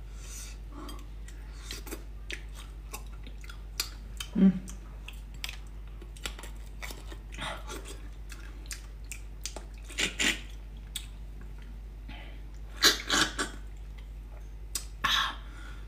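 Close-miked eating sounds: chewing of braised beef and bone marrow, with irregular sharp smacks and clicks, a few louder ones around the middle and near the end, over a faint steady low hum.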